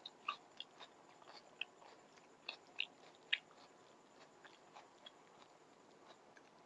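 Quiet close-miked chewing of rice and curry: wet mouth clicks and smacks, coming thick over the first three and a half seconds, then fewer and fainter.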